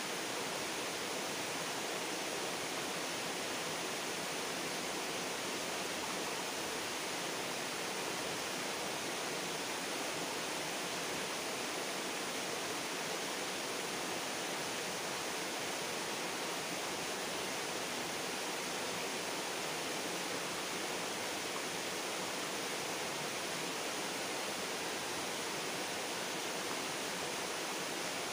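Steady rushing of river water, an even hiss with no change.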